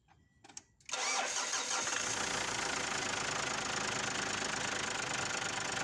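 Ford Ranger's WE four-cylinder diesel engine starting about a second in, catching at once and then idling steadily. This is its first start after a new timing belt, tensioner and idler pulley were fitted, with the timing cover off.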